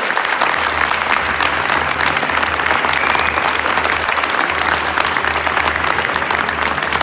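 Audience and performers applauding together in a large stone church: a dense, steady clapping.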